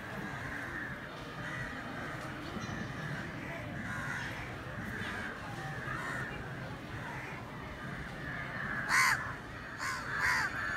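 Crows cawing, with three loud harsh caws close together near the end, over a steady background din.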